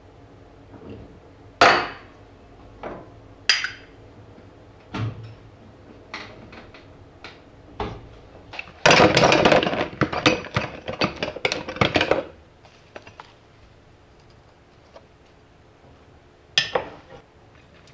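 Kitchenware being handled: scattered knocks and clinks of dishes and glass being set down and moved, with a busy clatter of many quick impacts for about three seconds in the middle.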